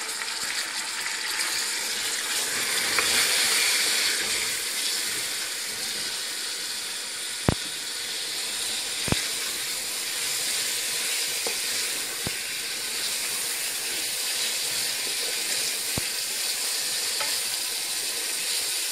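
Raw mutton pieces sizzling as they fry in hot oil with browned onions and garlic, stirred with a wooden spatula. A steady frying hiss, swelling a few seconds in, with a few sharp clicks against the pot.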